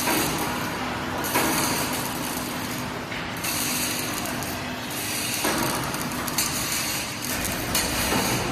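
H beam assembly machine running: a steady hiss and mechanical noise over a low hum, shifting abruptly several times.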